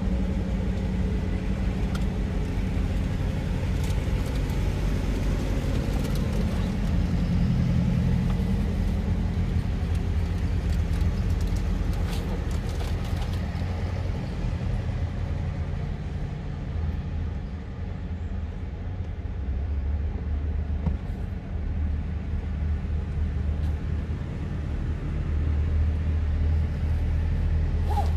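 A procession of tractors driving past on a road, their engines running steadily. The engine sound eases off in the middle and grows again near the end as another tractor comes close.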